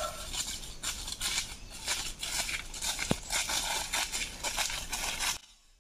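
Footsteps crunching and rustling through dry leaf litter and brush, an irregular run of crackles with one sharper snap about three seconds in, stopping abruptly near the end.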